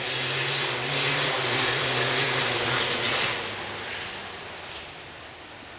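A motor vehicle passing by: a steady engine hum with a rushing noise that swells in the first few seconds, then slowly fades away.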